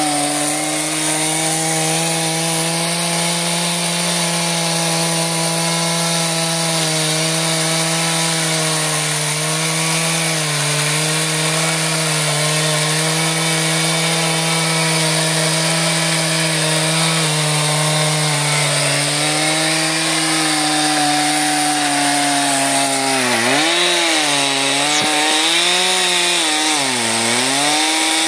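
Stihl chainsaw running at high revs while cutting through seasoned oak logs, its engine note sagging slightly as the chain bites. Near the end the pitch dips deeply and recovers twice.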